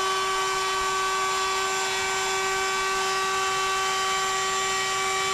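Electric power tool running at a steady speed: an even, high motor whine that holds its pitch throughout.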